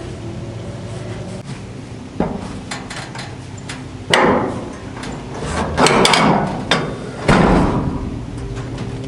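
Metal knocks and clanks from a steel chick-lift wheel kit as its lever is pushed down by foot, a run of loud knocks with ringing about four to seven and a half seconds in.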